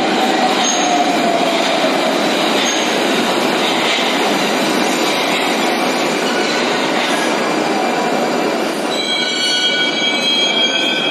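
Moscow Metro 81-760 "Oka" train running into a station and slowing, a steady rumble with a faint falling whine at first. About nine seconds in, several high squeals start as it brakes to a stop.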